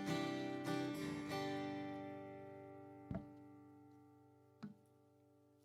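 The last chord of a song's instrumental accompaniment rings on and slowly fades away. Two short knocks sound as it dies, about three seconds and four and a half seconds in.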